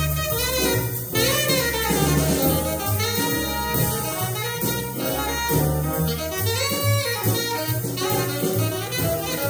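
Jazz recording: a tenor saxophone solo in fast rising and falling runs over a bass line and drums.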